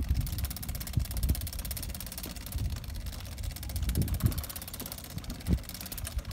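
Nosedragger aircraft tug's motor running steadily as it moves a light plane by its nose wheel, with irregular low thumps over it.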